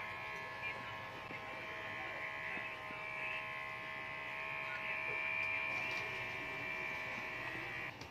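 BaoRun electric pet hair clipper running with a steady high buzz as it trims the fur around a Shih Tzu's paw. The buzz gets a little louder about five seconds in and drops abruptly near the end.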